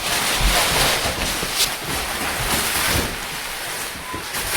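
Plastic wrapping on a boxed mattress rustling and rushing as it is pulled open and the mattress unrolls, a steady whooshing noise with scattered crinkles.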